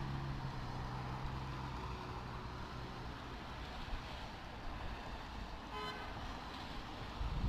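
Steady road and engine noise heard from inside a car as traffic brakes, with one brief car horn toot near six seconds in.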